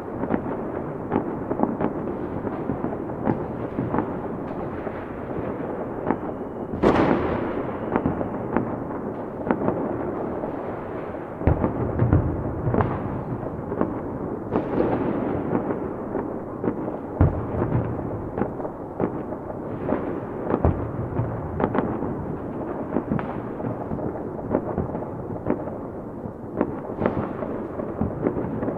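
Many fireworks going off at once: a dense, continuous crackling and popping with frequent sharp bangs. The loudest bang comes about seven seconds in and echoes away, and deep booms follow a few seconds later.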